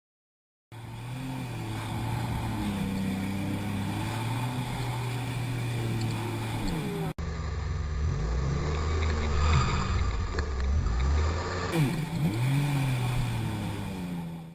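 An engine running steadily, its pitch shifting at times, with an abrupt change to a different engine-like sound about seven seconds in.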